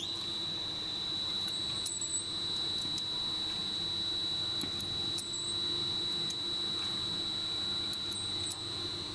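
Tube filling and sealing machine switching on and running, with a steady high-pitched whine that starts abruptly and holds, over a low hum and a few faint mechanical ticks.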